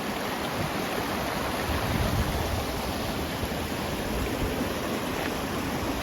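Fast-flowing mountain stream water rushing steadily below a waterfall, an even hiss.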